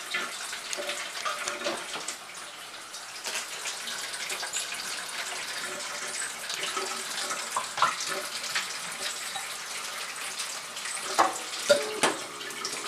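Steady rush of running water, with small clicks throughout and a few louder knocks near the end.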